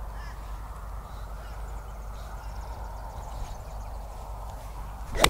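Golf iron striking a ball off turf, one sharp crack near the end, over steady outdoor background noise.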